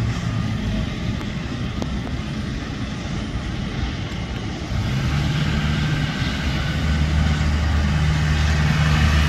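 Jet airliner engines running at taxi power, a steady low drone with a hiss on top that swells and grows louder about five seconds in.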